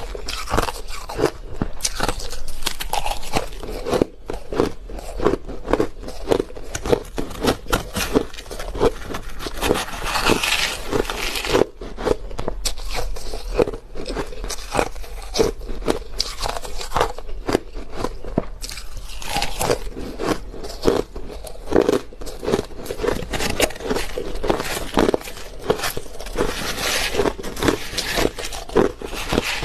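Crushed ice being bitten and chewed up close, a dense run of irregular crunches and crackles.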